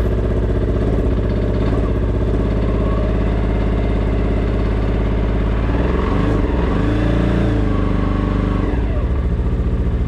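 Freshly started vehicle engine idling steadily while it warms up from cold; its pitch wavers briefly a little past the middle.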